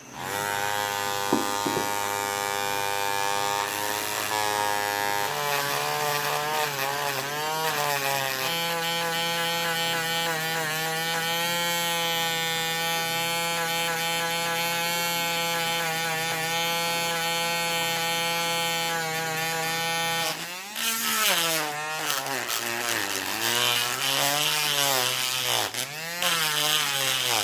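Homemade mini drill's small DC motor running with a steady whine, its pitch stepping up twice in the first nine seconds. From about twenty seconds in, the pitch dips and recovers repeatedly as the motor is loaded.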